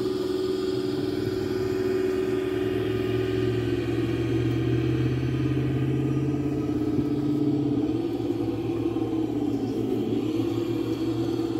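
Golf cart engine running as it follows along, a steady low drone whose pitch dips and recovers a few times with speed.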